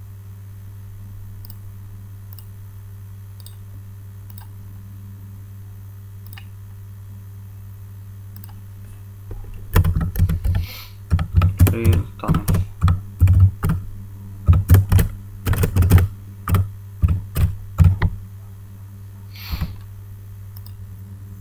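Typing on a computer keyboard: a quick run of keystrokes starting about halfway through and lasting some eight seconds, then one more click near the end. A steady low electrical hum underlies it.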